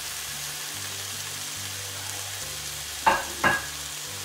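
Rice noodles, vegetables and freshly added bean sprouts sizzling steadily in a frying pan. A low hum steps on and off underneath, and two short knocks come close together about three seconds in.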